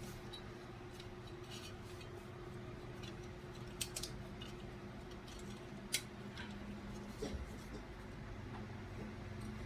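A few light clicks and taps of small hard parts and tools being handled during computer heatsink and thermal paste servicing, over a steady low hum.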